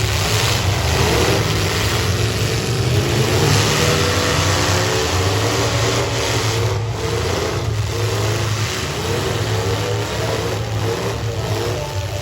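Several stock V8 demolition derby cars' engines revving together, their pitches rising and falling over a steady low drone.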